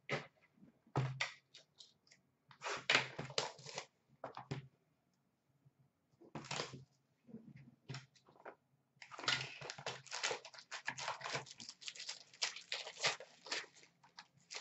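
Foil wrappers of Upper Deck Stature hockey card packs crinkling and tearing as a box is opened and a pack is pulled out and ripped open, in short irregular bursts with a long, dense stretch of crinkling about two-thirds of the way through.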